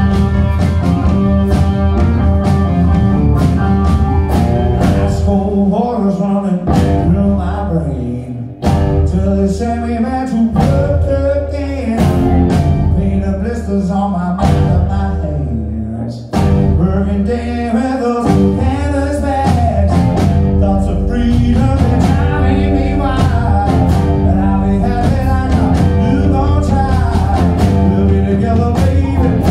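Live rock band playing: electric guitar, keyboard, bass guitar and drum kit, with a singer's voice at times. The sound briefly drops about eight and sixteen seconds in.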